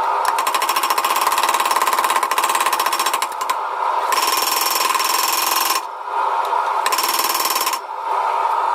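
A power tool running steadily, with a loud, rapid rattling hiss that comes and goes: on for about three seconds, then twice more for shorter spells, and again near the end.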